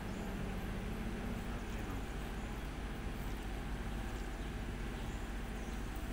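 Steady low outdoor background rumble with no distinct events, and a faint steady hum in the first couple of seconds.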